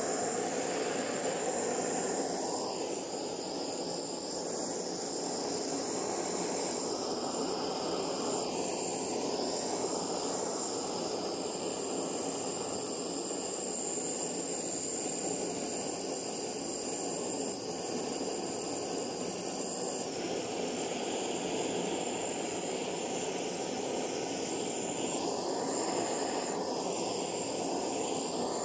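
Butane gas torch flame burning steadily: a constant, even rushing noise with no breaks.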